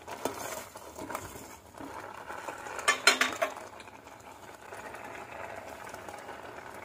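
A perforated steel ladle stirring and scraping in a steel pot of vermicelli payasam, with a short cluster of metal clinks about three seconds in. After that, the milk bubbles steadily at the boil.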